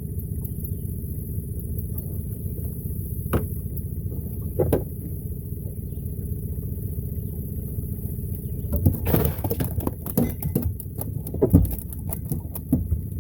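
Boat motor running steadily at idle. Two single knocks come early on, then from about nine seconds in a quick flurry of knocks and rattles as a catfish is brought in off the line.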